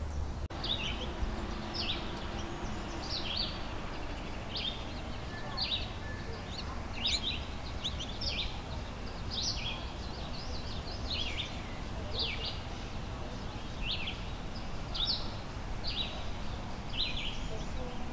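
Small songbirds chirping: short, sharp down-slurred chips repeated about once or twice a second, over a steady low background rumble.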